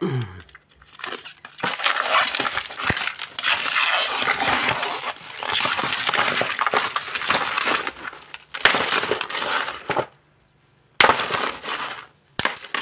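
A block of ice being broken up and crushed by hand in a plastic basin: dense crunching and cracking, with chunks clinking against each other. There is a sudden stop about ten seconds in, then more crunching and a few sharp clicks.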